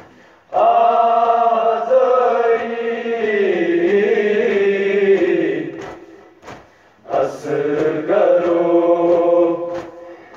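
Chanted, choir-like vocal refrain of a noha (mourning lament), sung in long held notes. It comes in two phrases with a short break about six seconds in.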